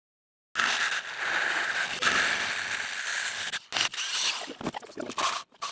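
Power drill cutting a hole through the side of a galvanized steel bucket. It starts suddenly about half a second in with a steady grinding noise for about three seconds, then turns choppy and stuttering as the bit catches in the cut.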